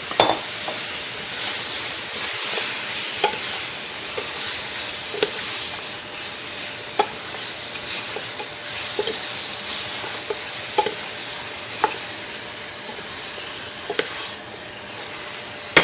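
Chopped chicken frying in oil with pounded herbs in a pot, sizzling steadily, while it is stirred; the stirring utensil knocks against the pot about once a second.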